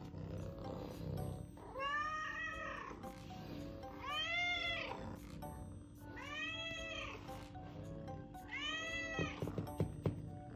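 A Scottish fold cat meowing four times, each call about a second long and rising then falling in pitch. These are insistent, demanding meows, urging to be let into the room. Soft background music plays underneath.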